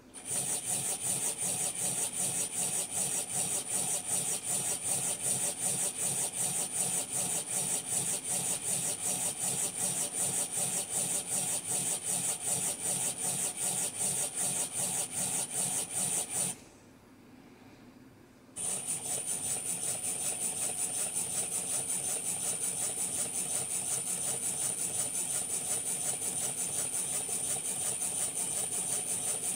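OO9 model locomotive running in place on a rolling road: its small electric motor and gears give a high steady whine over a fast, even rasping rhythm as the wheels and newly fixed coupling rods turn on the rollers. It stops about sixteen seconds in and starts again two seconds later.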